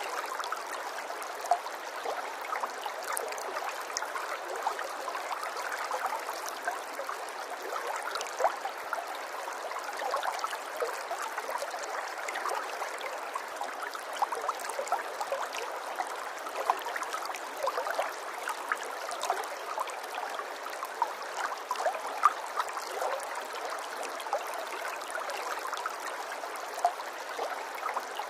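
Running water trickling and gurgling steadily, with many small splashes and drips ticking through the even rush.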